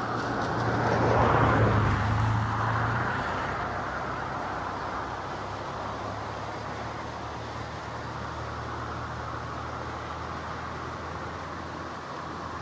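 Steady rushing roar of a flooded river running high against a bridge. A louder swell peaks about a second and a half in, and a low hum sits underneath, fading out near the end.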